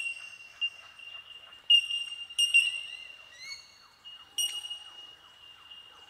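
A colony of Bell Miners (bellbirds) giving their ringing, bell-like 'tink' calls. Many birds overlap into a windchime-like chorus over a steady high ring, with the loudest tinks about two seconds in and again near four and a half seconds.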